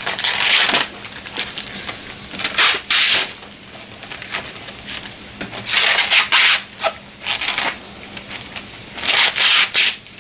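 Laptop accessories and their plastic packaging being handled: four short bursts of scraping and rubbing, a few seconds apart.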